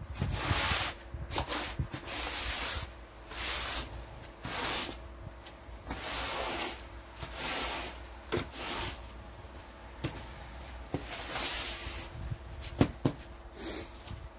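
Repeated rough scraping or brushing strokes of a long-handled tool, about one every second or two, with a few sharp knocks near the end.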